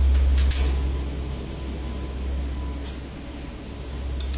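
Backdrop stand's metal crossbar being set onto the stand's top bolt and the knob screwed down by hand: a light knock about half a second in and a click near the end, over a steady low hum.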